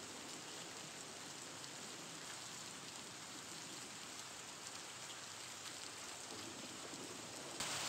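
A steady, even hiss like rain, getting a little louder near the end.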